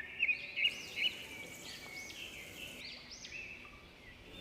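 Birds chirping: many short, high calls that rise and fall, one after another.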